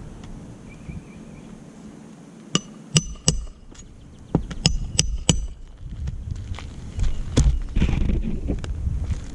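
A series of sharp metallic knocks, about seven over three seconds, several with a brief high ring, over low rumbling noise.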